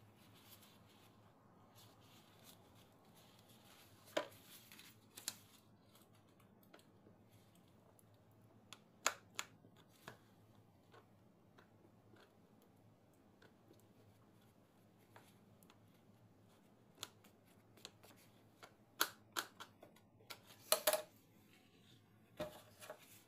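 Quiet handling sounds from gloved hands working at a plastic pastry press mould: scattered sharp clicks and taps of plastic and utensils, more of them in the last few seconds.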